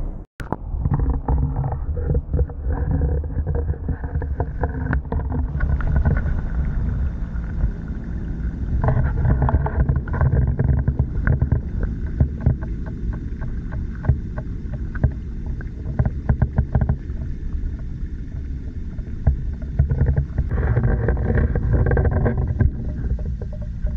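Muffled underwater sound picked up by a camera held below the surface of a fish pond: a steady low rumble with scattered small clicks and knocks.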